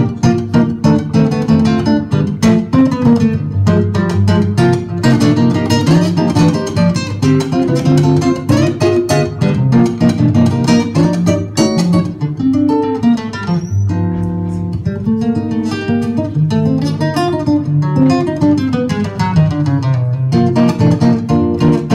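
Acoustic guitar playing an instrumental samba passage, with quick picked runs and strummed chords and one longer held chord about two-thirds of the way through.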